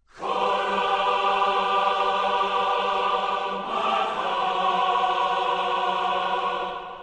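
Intro music of held, choir-like chords, with a chord change about halfway through, fading out near the end.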